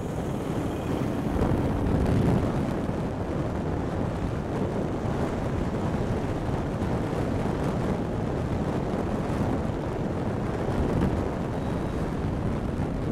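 Wind buffeting the microphone and rushing air while riding an OLA S1 Pro electric scooter at highway speed on a wet road, with no engine note, only a faint motor and tyre noise beneath. A louder gust comes about two seconds in.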